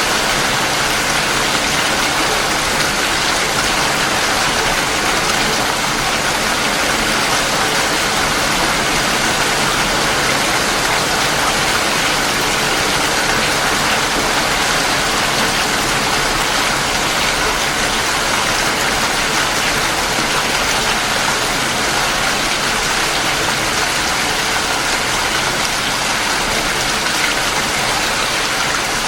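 Steady rain falling, a dense, even hiss of drops with no distinct impacts or breaks.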